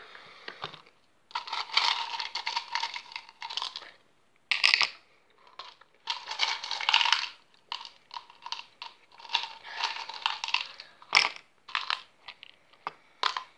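Hard sweets being crushed in a plastic cup: irregular bursts of gritty crunching and scraping with short pauses, and a sharp click or tap later on.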